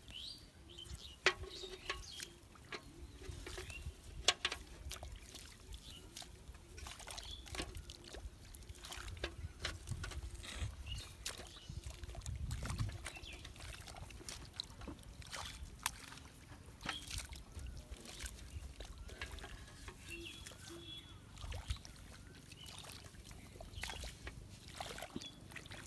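Hands groping through mud and shallow water in a rice-field drain, searching for fish: scattered small splashes, wet squelches and dribbles at irregular intervals, over a low rumble.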